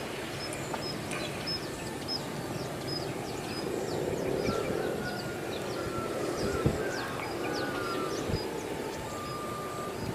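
Diesel locomotive approaching slowly at a distance: a steady low engine rumble that swells a little midway, with a few sharp knocks. Birds chirp over it in short high calls, about three a second.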